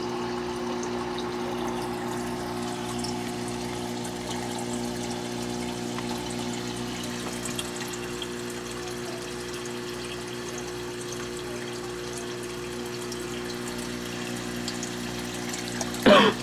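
Reef aquarium's circulation pumps running: a steady hum with several pitched lines, over the wash of moving water. A brief loud noise comes right at the end.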